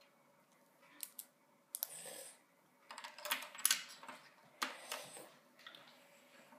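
Small plastic Lego pieces clicking and rattling as they are handled, in about four short bursts of clicks.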